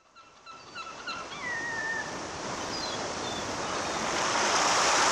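Waves washing on a shore, fading in and growing louder, with gulls calling over it: a quick run of short repeated cries at first, then a longer falling cry.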